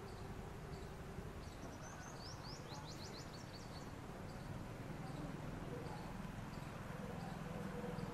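A quick run of about a dozen high, falling bird chirps about two seconds in, with faint single high peeps repeating around it, over a low steady background rumble.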